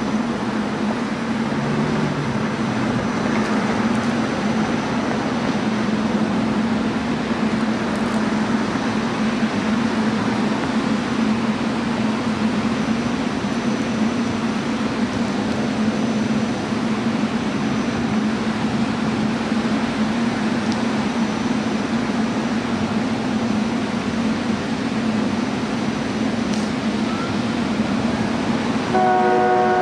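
A steady, fairly loud engine-like drone with rumbling noise throughout. About a second before the end, a train's multi-note chord horn starts to blow.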